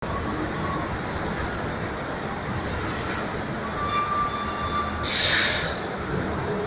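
Hong Kong tram running on street track, a steady rumbling noise, with a short loud hiss about five seconds in.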